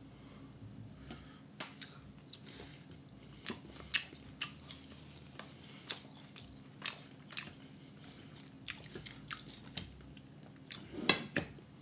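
Rotisserie chicken being pulled apart by hand and chewed: soft, irregular clicks and crackles, with a few louder ones near the end, over a faint steady low hum.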